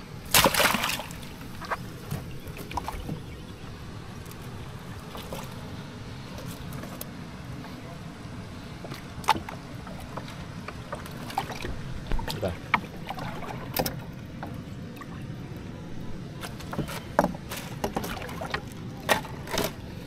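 Steady low rumble of water and wind around a small boat, with scattered knocks and clatters; the loudest clatter comes right at the start, and the knocks grow more frequent in the second half.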